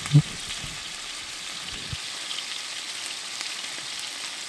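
Chicken thighs sizzling in hot oil in a skillet, a steady crackling hiss as the first side browns over medium-high heat. A short thump just after the start.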